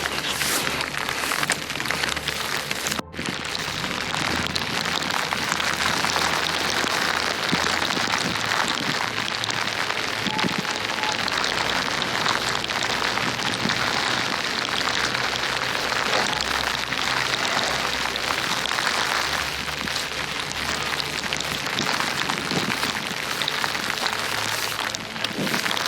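Hail and snow pellets pattering steadily in a snowstorm, a dense hiss of tiny ticks. There is a brief dropout about three seconds in.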